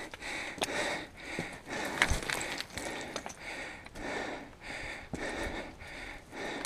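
A climber's hard, rhythmic breathing close to the microphone, about two breaths a second, from the exertion of a steep scramble up loose rock. A few sharp clicks of boots or hands on stone come through between breaths.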